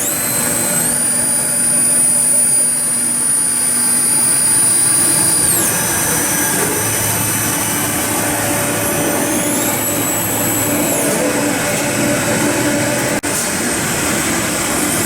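Gildemeister Speed 12-7 CNC Swiss-type lathe running through a machining cycle, a steady machine hum under a high whine. The whine glides up and down in pitch several times, about a second in, near five and a half seconds, and again around nine to eleven seconds.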